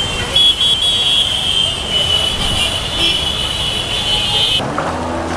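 Congested road traffic: engines running, with vehicle horns sounding almost without a break as steady high tones. About four and a half seconds in, this cuts off abruptly and gives way to a deeper, steady pitched hum.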